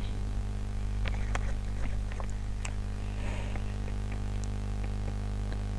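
Steady low electrical hum like mains hum, with a few faint clicks and light handling noises.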